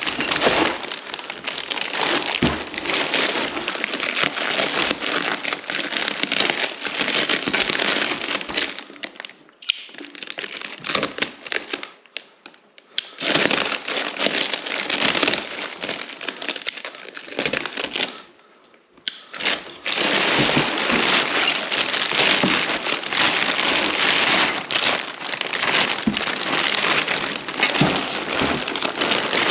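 Bubble wrap and plastic bags crinkling and rustling as hands dig wrapped parts out of a cardboard box, with brief pauses about ten, twelve and eighteen seconds in.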